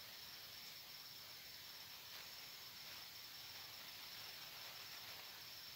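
Faint, steady high-pitched trill of crickets over low background hiss.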